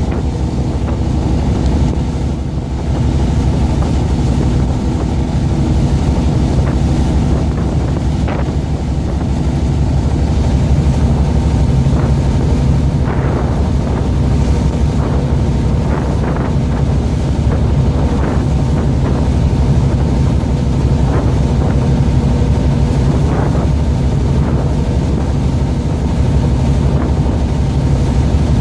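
Boat engine running steadily with a low hum, wind buffeting the microphone, and a few short splashes or knocks of water against the hull.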